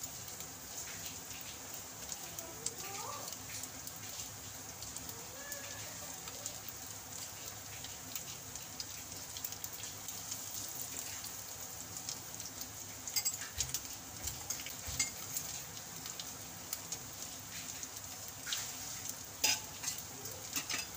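Breaded noodle snacks shallow-frying in hot oil in a pan: a steady sizzle with scattered crackles, and a few louder pops in the second half.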